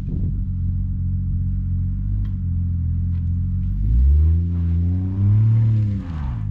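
Car engine running steadily, then revved once about four seconds in, its pitch climbing and sinking back over about two seconds.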